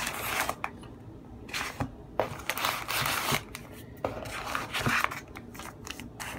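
Brown kraft packing paper rustling and crinkling in several bursts as paper-wrapped packages are handled and pulled from a cardboard shipping box, with a few light knocks.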